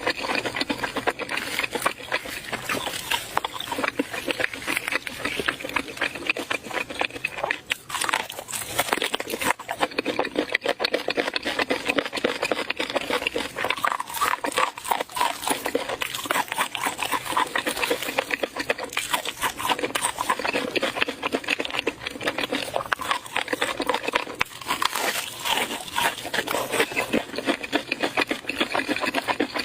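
Close-up eating sounds: continuous wet chewing and mouth smacking, a dense run of irregular clicks and crackles.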